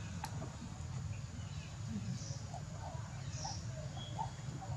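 Faint outdoor ambience: a steady low rumble with scattered faint bird chirps, and a single sharp click just after the start.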